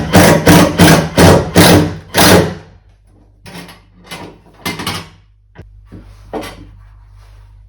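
Sharp knocks in quick succession, about three a second for two and a half seconds, then several scattered, quieter knocks.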